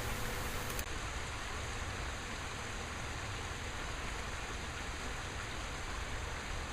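Steady rush of running water from a garden pond's waterfalls.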